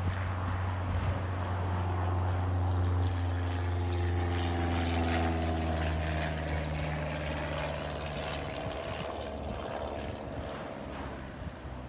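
Propeller aircraft flying past low overhead, a steady engine drone whose pitch drops as it goes by and then fades.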